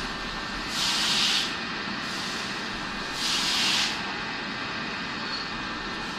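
CNC milling machine running steadily while thread milling, with two short hissing bursts, about a second in and again about three seconds in.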